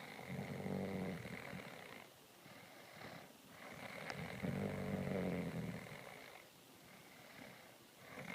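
A person snoring in sleep: two long, low droning snores about four seconds apart, with quieter breathing between them, and a third snore starting at the very end.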